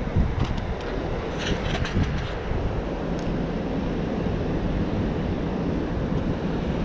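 Wind buffeting the microphone over a steady rumble of city traffic, with a few faint clicks in the first couple of seconds.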